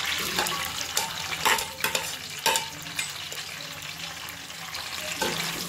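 Hot cooking oil sizzling in a metal pot as sliced onions are tipped in from a plate, with a few sharp clicks and scrapes against the pot in the first three seconds and another near the end.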